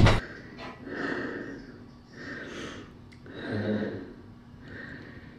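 A single loud drum-kit hit at the very start, then a person breathing hard after a warm-up, a breath about every second and a quarter.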